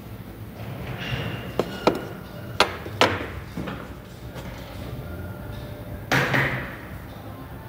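Metal parts of a Tesla Model 3 rear drive unit knocking and clanking against a steel workbench as they are handled and set down. A run of sharp clanks comes in the first few seconds, and a louder clatter about six seconds in.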